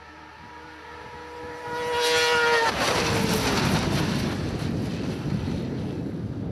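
Racing snowmobile engines at full throttle: a high engine whine climbs and grows louder as the sleds come on, then drops in pitch as they pass close by about two and a half seconds in. A loud rushing of the sleds' running and wind follows.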